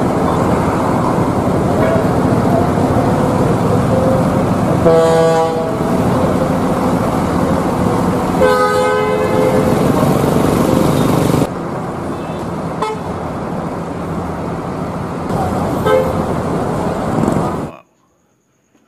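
Bus engines and street traffic, with a bus horn sounding twice: a short blast about five seconds in and a longer one a few seconds later. The traffic noise drops at a cut and stops abruptly shortly before the end.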